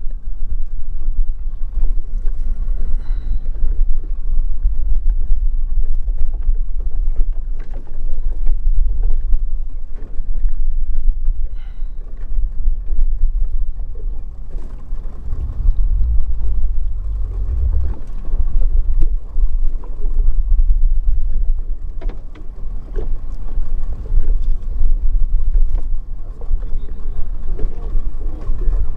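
Steady low rumble of wind and sea around a small open fishing boat, with scattered knocks and rattles as a wire-mesh fish pot is hauled in over the side.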